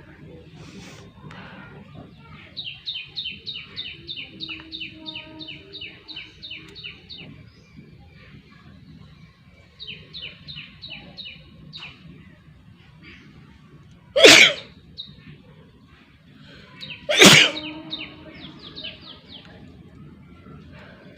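A person sneezing twice, about three seconds apart, in a sneezing challenge.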